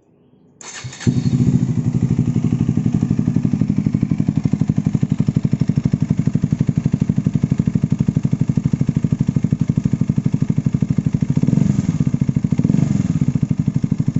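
KTM Duke 250's single-cylinder engine, breathing through an aftermarket SC-Project exhaust, cranked on the electric starter and catching within about half a second, then idling loud and steady with an even, rapid thump. Near the end the throttle is blipped twice, briefly raising the revs.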